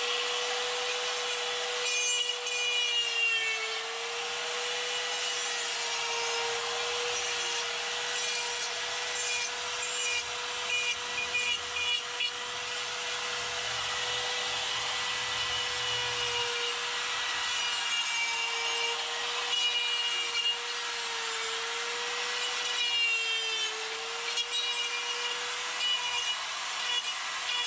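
Electric die grinder with a Saburrtooth carbide flame burr grinding wood: a steady motor whine over a rasping grind, the pitch dipping briefly several times as the burr bites into the wood.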